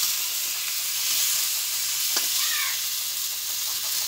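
Raw chicken pieces sizzling in hot oil in a black karahi as a metal spatula stirs them, with a sharp scrape or tap of the spatula about two seconds in.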